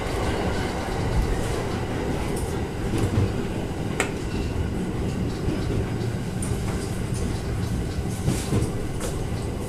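JR 209 series electric train running along the line, heard from inside the leading car: a steady rumble of wheels on the rails with scattered short clicks, the sharpest about four seconds in.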